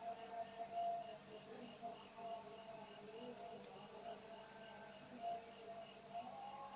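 Night chorus of crickets and other insects: several steady high trills, one of them chirping in even pulses about three times a second.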